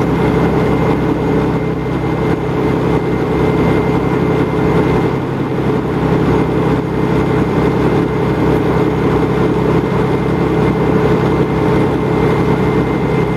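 Fire engine's diesel running steadily at pumping speed to supply the hose line: a constant loud drone with a steady whine held through.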